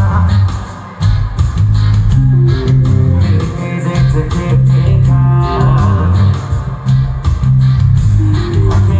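Live rock band with distorted guitars, bass and drums playing an instrumental passage, loud as heard by a concert-goer's recording, with a brief drop about a second in.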